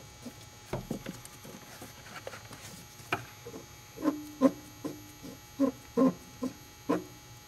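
Braided hose's AN fitting being threaded by hand onto an oil catch can with gloved hands: a few light clicks, then from about four seconds a run of short squeaks, about two a second, as the fitting is turned.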